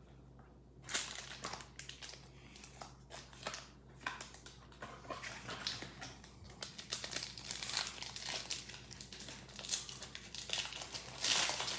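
Foil booster-pack wrapper crinkling and crackling as it is picked up, handled and opened. The crackles start about a second in and grow denser toward the end.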